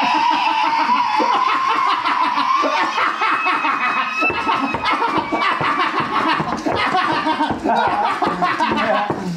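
People laughing hard, with a high, wavering held voice through the first few seconds and then broken, pulsing laughter.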